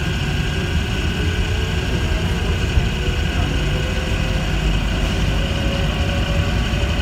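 Rubber-tyred automated people-mover train running through a tunnel, heard from inside the car: a steady low rumble from the running gear with a steady high whine from the propulsion electronics. A fainter motor tone rises slightly in pitch over the first couple of seconds as the train gathers speed.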